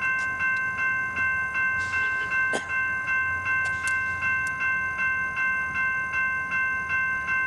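A railroad warning bell ringing steadily, about two and a half strokes a second, as a SunRail passenger train approaches. There is a faint low rumble and a few sharp clicks under it.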